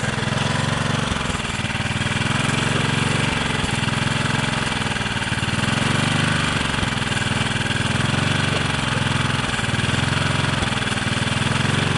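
Small engine fitted with a Pantone-style GEET fuel processor, running steadily with a low hum and a hissing exhaust noise that swell and ease slightly.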